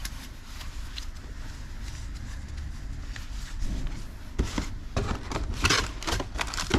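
Packaging and parts being handled: a low steady hum at first, then from about halfway in irregular clicks and rustling, loudest near the end.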